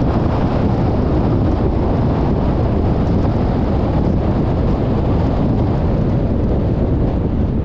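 Steady low rumble of wind and tyre noise from a car driving at road speed, with wind rushing over the microphone.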